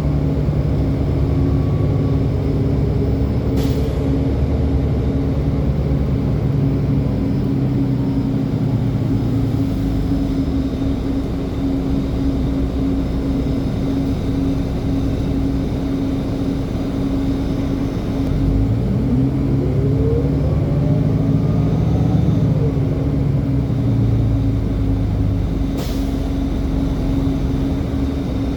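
A city transit bus running with a steady low rumble and hum. About two-thirds through, a whine climbs steadily in pitch for a few seconds as the bus accelerates. Two sharp clicks stand out, one early and one near the end.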